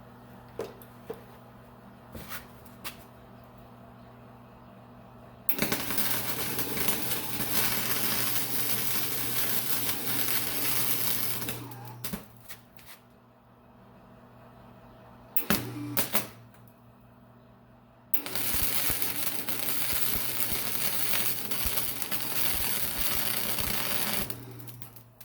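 A 1987 Harbor Freight flux-core wire welder laying two welds of steady crackling arc, about six seconds each, with a brief strike between them. Between the welds the welder's transformer hums steadily.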